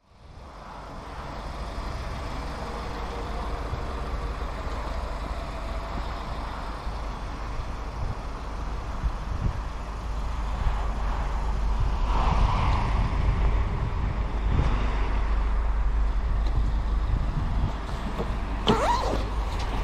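Outdoor road-traffic noise: a steady low vehicle rumble that fades in at the start, with a brief high squeal near the end.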